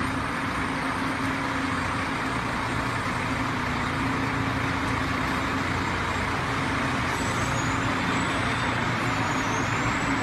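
Convoy of military trucks driving slowly past with escort cars, heavy engines running steadily over a wash of road and tyre noise.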